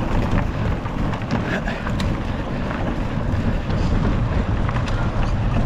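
Wind buffeting the microphone of a rider-mounted camera on a cross-country mountain bike at speed, a steady low rumble, with a few sharp clicks and rattles from the bike over rough ground.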